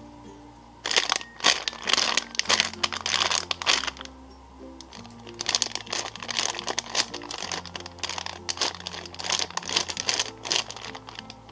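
Clear plastic packaging bag crinkling as hands handle packaged squishy toys, in two stretches, from about a second in and again after a short pause near the middle, over soft background music.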